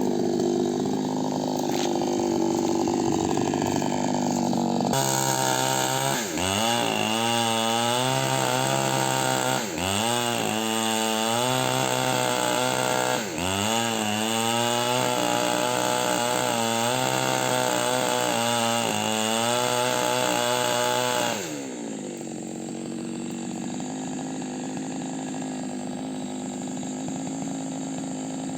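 Chainsaw running hard while felling a candlenut tree, its engine pitch dipping and recovering three times under load. About 21 seconds in, it drops back to a quieter, steady run.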